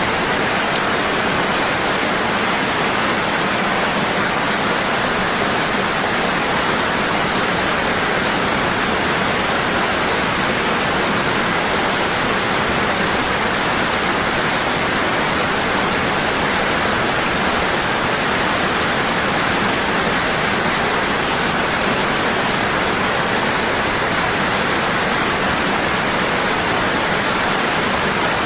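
Waterfall, water falling heavily and constantly in an even, unbroken rush.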